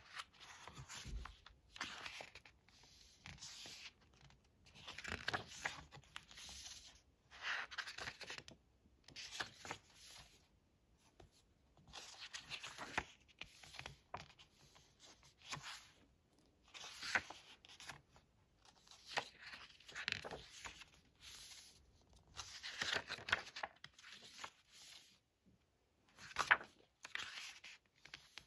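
Pages of a hardcover photobook being turned and smoothed by hand: a string of short paper rustles and slides, about one a second.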